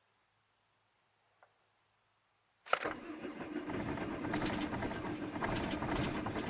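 VW T4 Transporter diesel engine being cranked on the starter in freezing weather. It starts suddenly about two and a half seconds in and keeps cranking with a fast, pulsing chug to the end. It is a cold-start attempt on an engine whose glow plugs don't work properly.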